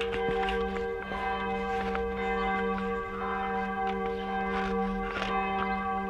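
Church bells ringing, a dense set of steady overlapping bell tones that hold throughout. Faint clicks and rustles of the wheel and rubber casing being handled sound over it.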